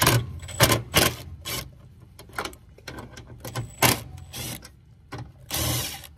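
Makita cordless power driver running in short bursts as it backs out screws, with a longer half-second run near the end.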